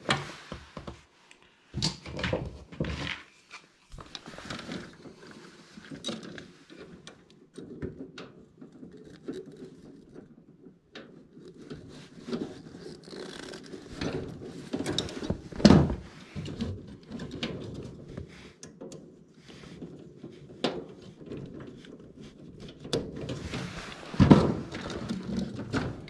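Handling noise from hands working on wiring in an HVAC unit's control compartment: rustling, scattered small clicks and knocks, with a few louder thumps near the start, in the middle and near the end.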